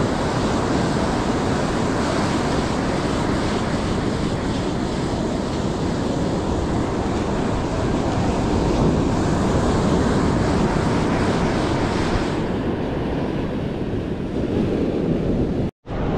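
Ocean surf breaking on a beach, with wind buffeting the microphone; the sound cuts out for a split second near the end.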